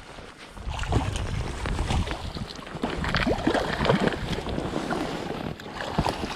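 Creek water splashing and sloshing in irregular splashes from about a second in, with wind rumbling on the microphone.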